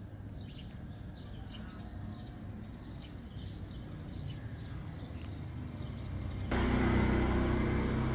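Outdoor street noise: a steady low traffic rumble with faint bird chirps. About six and a half seconds in, a much louder, steady engine noise cuts in abruptly.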